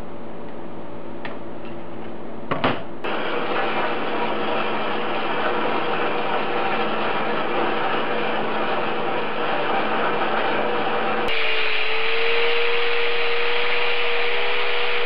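A vertical bandsaw cutting a 13B rotary exhaust flange out of metal plate, a steady cutting noise that follows a few light clicks. About eleven seconds in it changes abruptly to a louder angle grinder grinding the flange's edge, with a steady motor whine.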